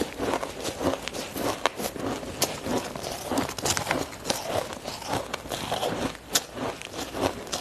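A person biting and chewing ice close to the microphone: an irregular run of sharp crunches and cracks, several a second.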